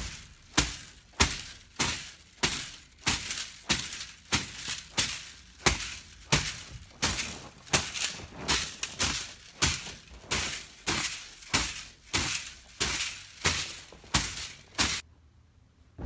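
Stiff plastic-bristle broom swept and slapped across a quilted spring mattress to clean it, in quick sharp strokes about two a second that stop near the end.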